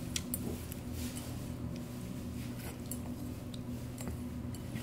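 Faint, scattered light clicks of chopsticks against a porcelain bowl, over a steady low hum.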